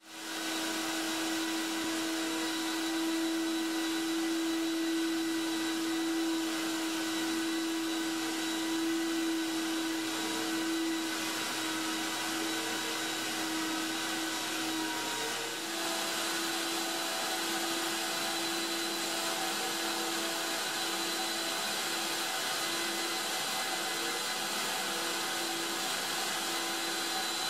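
Carpet-cleaning extraction vacuum running steadily as the manual wand and then the Rotovac 360i head pull over wet carpet: a constant hiss with a steady whine, its tone changing slightly about sixteen seconds in.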